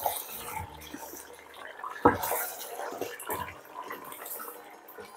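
A wooden spoon stirring mutton chops and yogurt in a metal pot: wet squelching with several knocks of the spoon against the pot, the loudest about two seconds in.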